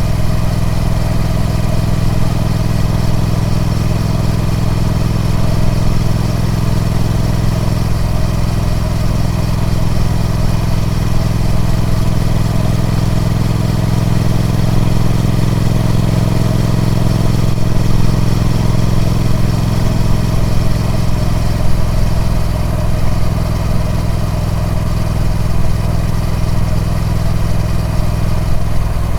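Triumph Speed Twin 1200's 1200cc parallel-twin engine running steadily through its stock exhaust, holding an even speed with no clear revs.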